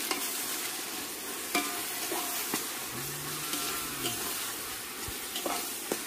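Onions, tomatoes and green chillies sizzling in hot oil in a metal pot while being stirred with a metal ladle. The ladle scrapes and clinks against the pot a few times.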